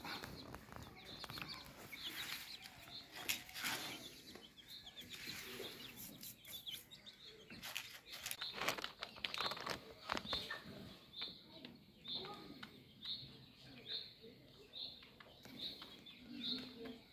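A bird repeating a short, high call about one and a half times a second through the second half, over scattered clicks and rustling.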